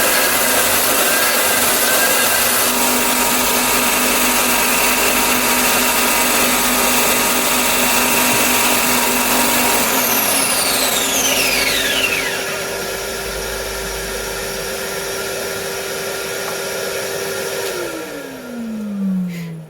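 Bucktool BD4603 direct-drive belt and disc sander running together with a Henry vacuum drawing dust from it. About halfway through one machine is switched off and its high whine falls away; near the end the other is switched off and its hum falls in pitch as it winds down.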